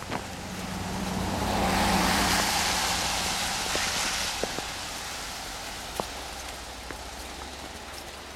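A vehicle passing by: a rushing noise that swells over about two seconds and then fades away.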